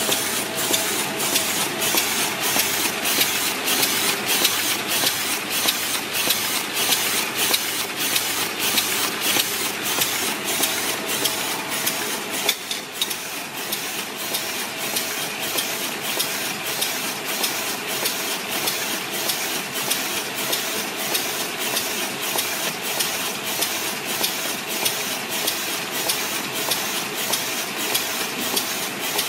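Fully automatic small paper bag making machine running, a steady mechanical clatter with a regular stroke about twice a second over a constant hum.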